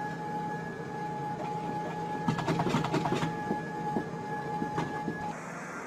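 Electric treadmill running: a steady motor whine and belt hum, with a stretch of quick clattering about two to three seconds in. The whine stops shortly before the end.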